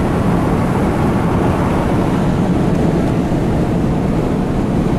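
Steady road and engine noise heard inside a vehicle's cabin while it cruises along a highway at about 90 km/h.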